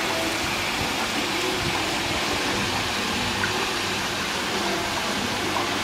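Steady splashing rush of water pouring into a garden koi pond.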